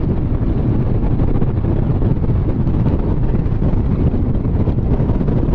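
Strong wind buffeting the microphone: a loud, steady low rumble with no pauses.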